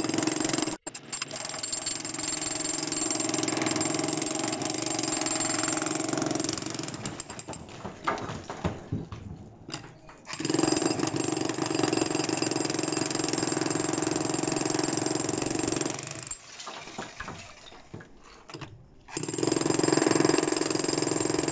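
Corded Dongcheng electric demolition hammer running, its chisel bit pounding into a reinforced concrete floor slab to break it up. It runs in three spells, easing off briefly about halfway through and again about three-quarters of the way through.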